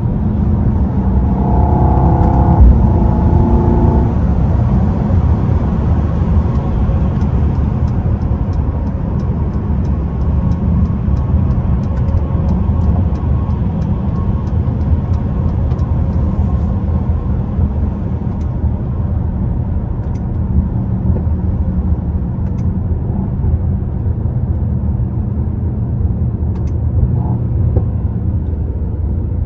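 Cabin sound of a 2022 Mercedes-AMG GLE 63 S at highway speed: a steady low drone from its twin-turbo V8 mixed with tyre and road noise. There is a brief louder swell about two seconds in, and the sound eases slightly toward the end.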